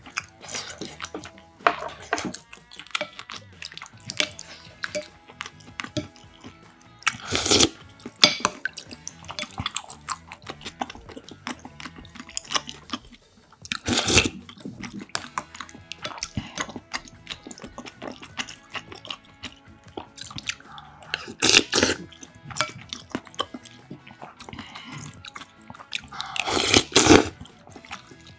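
Close-miked eating sounds: chewing, with a few loud slurps and sips of broth from a spoon, the strongest about halfway through and near the end.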